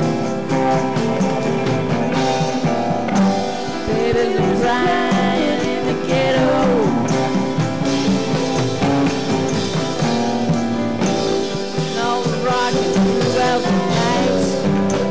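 A song's band accompaniment with guitar and drums, played steadily; a melody line bends up and down in pitch about four to seven seconds in.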